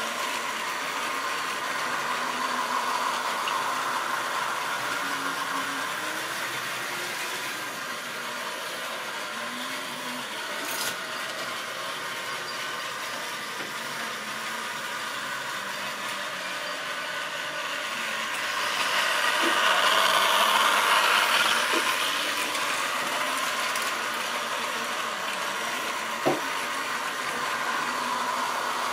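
Tri-ang or Lima model railway train of wagons running along the track: a steady rolling rattle of small wheels on the rails. It swells louder for a few seconds about two-thirds of the way through, and there is a sharp click near the end.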